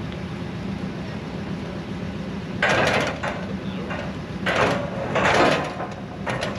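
A steady engine hum underneath four short, loud scraping clatters, spread from a little past halfway to the end, as heavy gear is shifted during loading.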